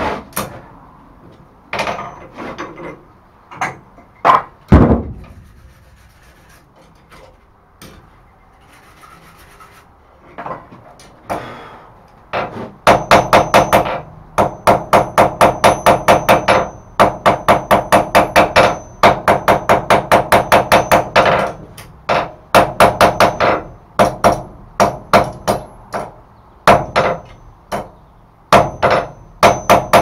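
Blacksmith's hand hammer striking a hot steel bar on an anvil while forging a thumb latch bar. A few scattered blows come first as the bar is cut on an offset hardie, then a lull. About halfway through, a long run of fast, evenly paced ringing blows, about two to three a second, chamfers the side of the cut end, followed by more blows in short groups.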